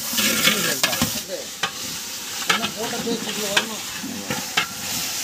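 Onions and ginger-garlic paste sizzling in a large aluminium pot while a long metal ladle stirs them, the ladle scraping and knocking against the pot about once a second.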